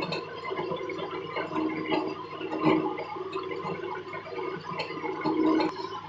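Wood lathe running, with an uneven scraping as something works against the spinning mahogany workpiece, over a faint steady motor hum.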